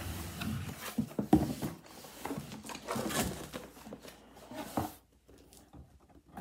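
Cardboard shipping box being handled and opened: flaps pulled apart and cardboard rubbing and scraping, with a few sharp knocks.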